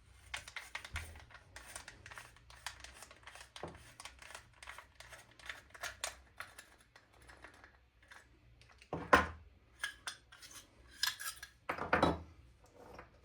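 Airsoft rifle cylinder parts being worked apart by hand with a cylinder tool: many small hard clicks and rattles, then two louder knocks about 9 and 12 seconds in.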